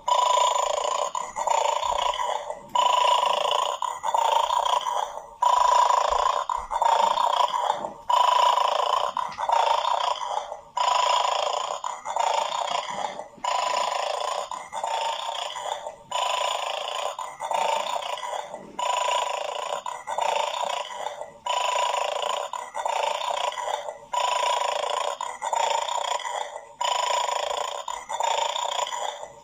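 A pet eating its favourite food, making rhythmic bursts of sound about once a second.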